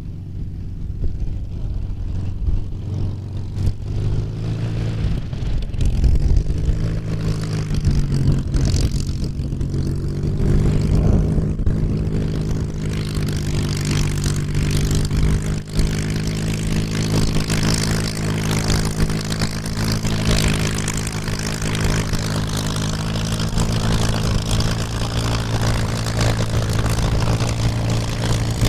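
Rolls-Royce Merlin V12 of a Hispano HA-1112-M1L Buchón running at low power as the fighter taxis, its propeller turning. The engine note rises between about six and eleven seconds in, then holds steady.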